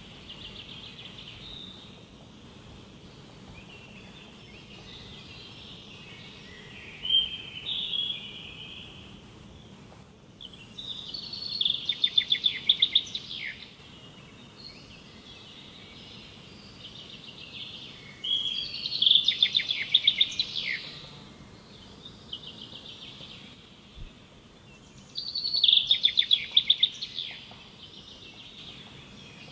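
A songbird singing, repeating a short, bright song that ends in a rapid trill, three loud times about seven seconds apart, with quieter singing in between, over a faint steady background hiss.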